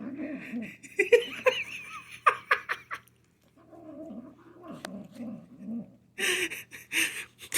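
Manx kitten growling and grumbling while she eats, in low wavering runs broken by higher cries, with a few sharp clicks in the first few seconds and harsh breathy bursts near the end.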